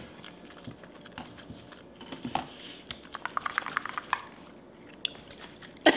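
A person chewing a mouthful of hot Cheetos pancake close to the microphone, with small clicking mouth sounds that come thickest about halfway through.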